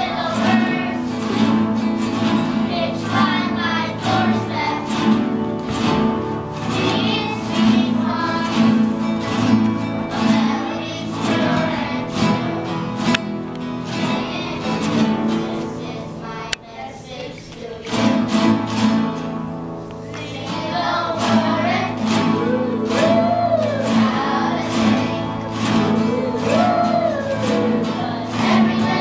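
A children's class band strumming acoustic guitars and singing together, with a brief lull just past halfway before the strumming and singing resume.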